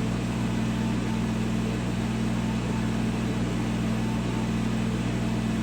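Laser engraver running mid-job while etching glass: a steady electrical and fan hum from its blower and pumps. A faint short whine recurs about once a second as the head sweeps back and forth across the raster lines.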